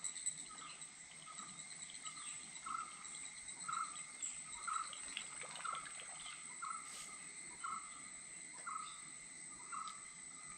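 Steady high-pitched insect drone, with a short animal call repeating about twice a second.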